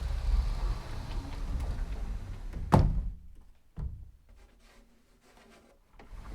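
Sliding closet door rolling along its track with a low rumble, then stopping with a sharp thunk about two and a half seconds in, followed a second later by a smaller knock and faint rattling. Near the end the door starts rolling again.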